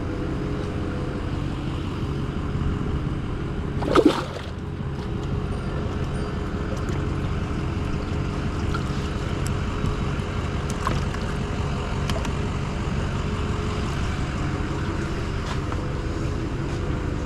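An engine runs steadily with a low, even hum. A brief, loud, pitched sound cuts in about four seconds in.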